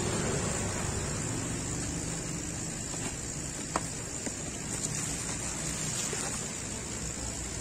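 A cardboard box being opened by hand, its lid lifted off, with a few faint taps and handling clicks over a steady background rumble and hiss.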